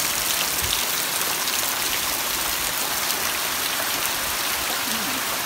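Rain falling steadily on concrete and on the water of a cement fish tank, an even hiss of drops.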